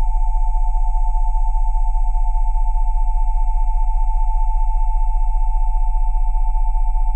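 Synthesized pure sine tones at about 727, 787 and 880 Hz sounding together over a deep 20 Hz tone, a Rife frequency set. The tones are held steady with a fast, even pulsing in loudness.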